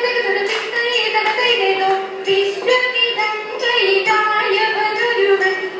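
Margam kali song: a voice singing a slow melodic chant in held notes over a PA, with a few sharp percussive strikes at intervals.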